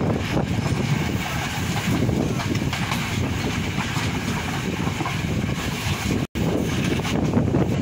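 Wind buffeting the microphone over the steady rumble of a moving passenger train, heard from its open door. The sound cuts out for an instant about six seconds in.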